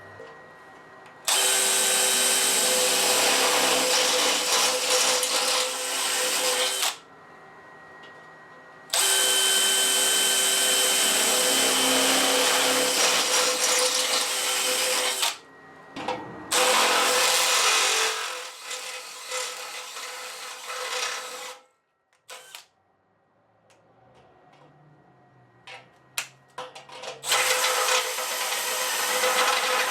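DeWalt DCD996 brushless hammer drill running under load in long steady runs: three of about four to six seconds with short pauses between them, then a quiet spell with a few clicks, and a fourth run starting near the end.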